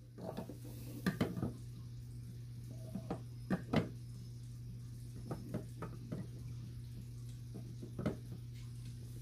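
Irregular clattering knocks from a dog scrabbling to get at a gopher, over a steady low hum.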